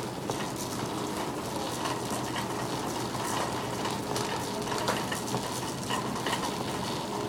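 Shopping cart being pushed over a hard store floor: a steady crackling rattle of the wheels and wire basket, with many small clicks.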